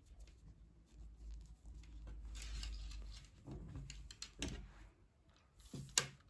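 Faint rustling and a few soft taps as a crocheted baby dress is handled and smoothed out, over a low rumble.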